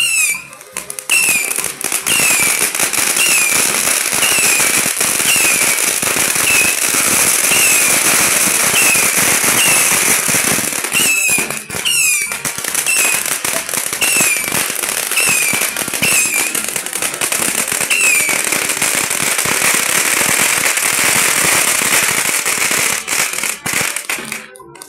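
Fireworks on a burning castillo (bamboo pyrotechnic tower): dense crackling and popping, with a short falling whistle repeating about every three-quarters of a second. It cuts off shortly before the end.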